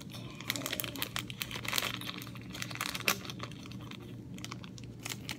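Small plastic charm packets crinkling and crackling as they are handled and opened, busiest in the first three seconds, with one sharper click a little after three seconds in.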